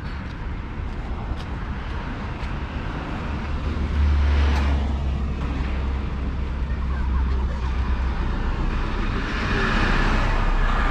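City street traffic: vehicles passing, with a heavy low rumble swelling about four seconds in and another vehicle going by near the end.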